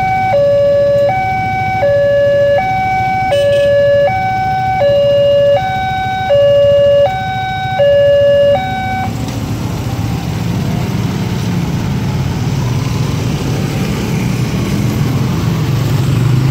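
Railway level-crossing warning alarm sounding a two-tone high-low chime, each tone about three-quarters of a second, that stops about nine seconds in once the train has cleared. Then motorcycle and car engines rumble, growing louder as the waiting traffic moves off across the tracks.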